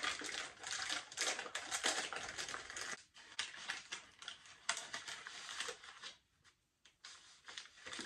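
MRE flameless ration heater crackling and fizzing in its sleeve as it reacts with the added water: a dense run of quick ticks that thins out about three seconds in, with the sleeve and cardboard carton handled.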